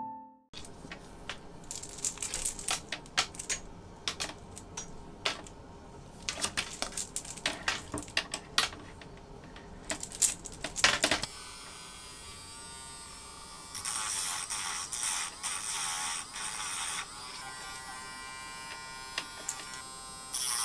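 White plastic chain links jangling and clicking against each other in the hands, a quick run of light clatters and rattles. About halfway through, a small handheld electric motor starts to whir steadily and gets louder for a few seconds, with a few more link clicks over it.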